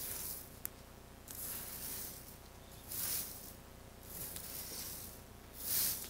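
Twig broom sweeping snow: repeated swishes roughly every second and a half, the loudest near the end, with one sharp click just over half a second in.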